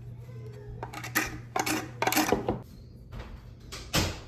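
Hand tools and trim being handled during wall prep: a series of sharp knocks and scraping clatters, the busiest stretch about two seconds in and one last knock near the end, over a steady low hum.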